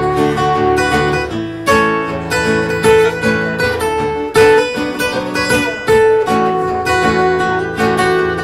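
Acoustic guitar strummed and picked in an instrumental break of a live song, with a steady rhythm of plucked notes.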